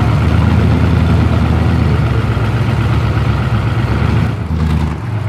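Off-road desert race truck's engine idling loudly and steadily, with a brief change in its note a little after four seconds in.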